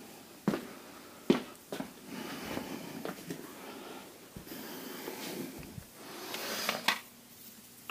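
Sockets and hand tools handled on a concrete garage floor while a mechanic tries sockets for size: a few sharp metal clicks in the first two seconds, then rustling and breathing that build to another click near the end.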